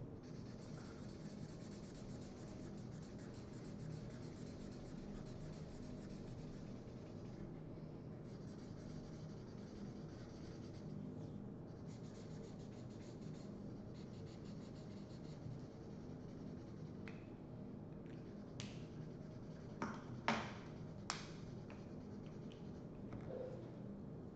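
Felt-tip markers scratching across paper as two people colour in drawings, with a few short sharp clicks in the second half.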